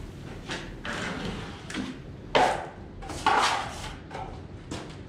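Drywall knife scraping joint compound: short scraping strokes of the metal blade against the mud pan and along a ceiling joint as the compound is loaded and pressed into the gaps, two strokes louder than the rest a little before and after the middle.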